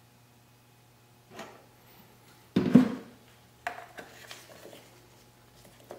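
Hand tools and engine parts being handled during a dirt bike oil change: a soft knock, then a louder clunk about two and a half seconds in, followed by several light metallic clicks and taps, over a faint steady hum.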